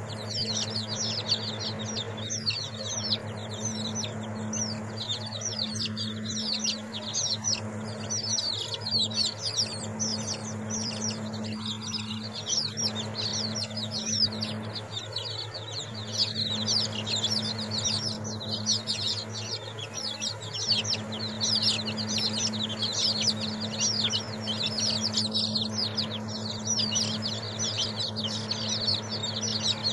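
A flock of week-old chicks peeping constantly, many short, high, falling peeps overlapping without a break, over a steady low hum.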